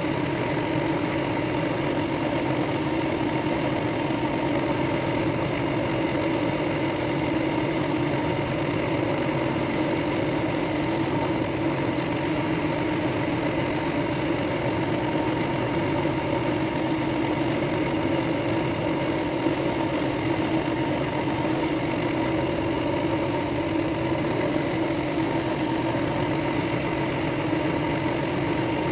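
Drill press motor running at a steady speed with a sanding spindle in the chuck, sanding out the centre hole of a wooden ring blank with a brass layer: a constant even hum.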